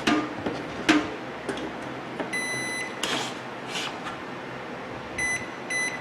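Frigidaire microwave oven's control panel beeping: one longer beep about two seconds in, then two short beeps near the end as keypad buttons are pressed, with the keypad now responding after a faulty door micro switch was replaced. A couple of sharp clicks from handling come in the first second.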